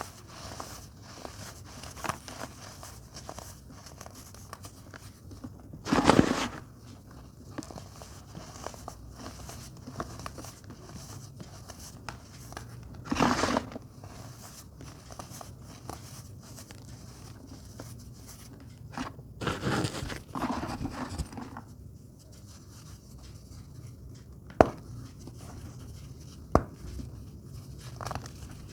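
Baking soda being crushed and crumbled: a continuous fine crackling, with three louder crunching passages spread through and two sharp clicks near the end.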